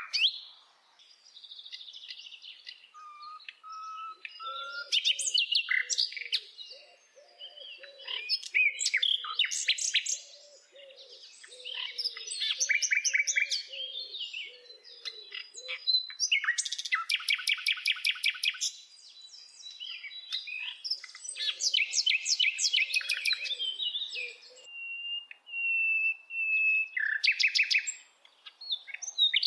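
A songbird singing a long, varied song of rapid trills, buzzy runs and clear whistled notes, phrase after phrase with short pauses between.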